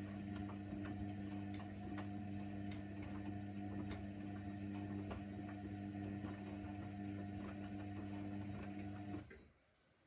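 Hoover Nextra 6 washing machine humming steadily, with scattered light ticks, during its wash cycle. The hum cuts off suddenly about nine seconds in.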